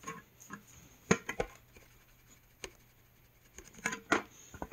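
An ABS plastic screwdriver-bit case being shaken with its bits held in clips. It gives a few scattered light clicks and knocks, irregularly spaced, with the sharpest ones about a second in and near the end.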